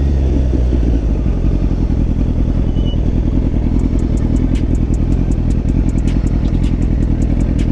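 Motorcycle engine running with a steady low rumble, with short ticking clicks from about halfway through.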